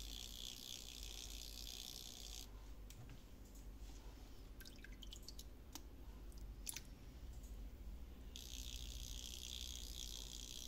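A plastic fishing lure handled in a pot of water: a few light clicks and drips while it is adjusted. A steady high hiss of unknown source cuts off about two and a half seconds in and starts again abruptly near the end.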